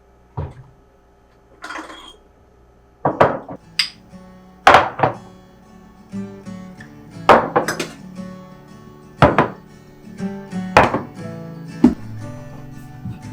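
Kitchen things being handled and set down: a string of separate knocks and clinks, some with a brief ring. Soft background music comes in about halfway through.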